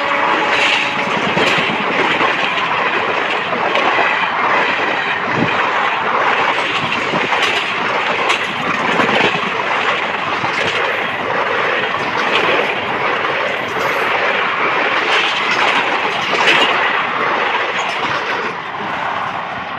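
Passenger coaches of an Indian Railways express rushing past at speed, their wheels clattering over the rail joints in a steady loud rush. It fades near the end as the last coach goes by.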